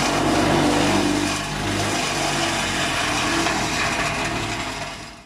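An engine running, its pitch wavering up and down, fading out at the very end.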